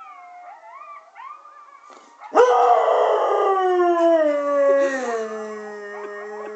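English springer spaniel howling: about two seconds in it breaks into one long, loud howl that slides down in pitch and then holds low. Before and under it, fainter wavering howls and yips of coyotes play from a recording.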